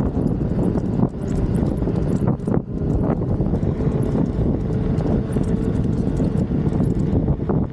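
Wind buffeting the microphone of a camera carried on a moving electric unicycle, a steady low rumble with a few scattered clicks and knocks.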